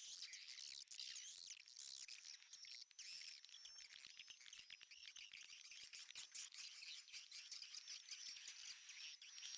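Swiftlets twittering, a faint, dense run of high chirps.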